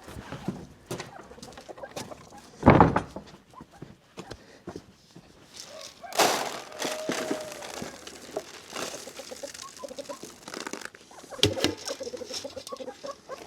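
Chickens clucking amid scattered knocks and rustling, with one loud thump about three seconds in.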